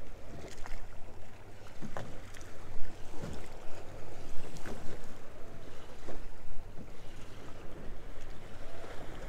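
Water slapping and lapping against the hull of a Bulls Bay 2200 bay boat, with scattered short knocks, wind on the microphone and a steady low hum underneath.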